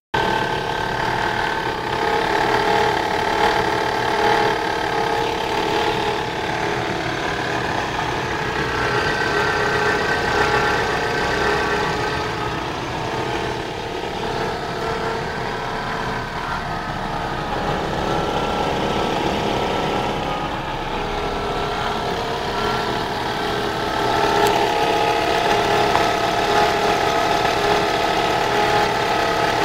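Vehicle engine running steadily at idle, with an extraneous noise in it that the owner is trying to point out.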